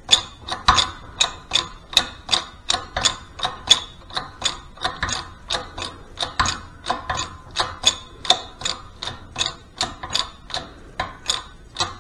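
Shop press being worked by hand: a steady run of sharp metallic clicks, about three a second, as the ram is brought down onto a socket resting on a gear's bearing, before pressure builds.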